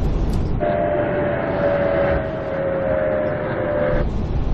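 Steady whistling tone on the ATC radio channel for about three seconds, two close pitches drifting slightly downward, cutting off suddenly; it sounds like a carrier whistle on an open transmission. Before and after it, the airliner cockpit's steady engine and airflow rumble.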